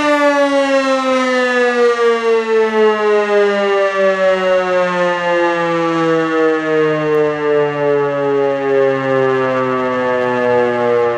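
E57 electromechanical siren, its rotor driven by a 5 kW three-phase motor, winding down during a fire-alarm test. Its single wailing note slides steadily lower the whole time, and the loudness wavers slightly.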